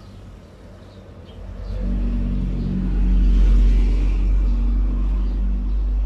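Low engine rumble with a steady hum, coming up about a second and a half in and staying loud.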